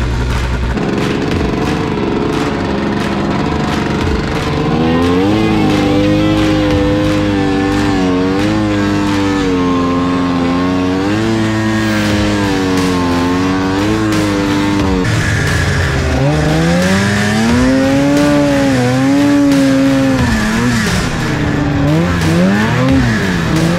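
Arctic Cat 600 two-stroke snowmobile engine heard from on board, running under throttle in deep snow. Its pitch rises and falls as the throttle is worked, eases off about two-thirds of the way through, climbs again, and gives a few quick revs near the end.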